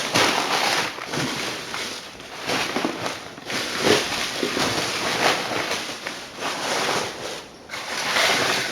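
Rustling and crackling of items being handled and shifted about during tidying, in uneven surges.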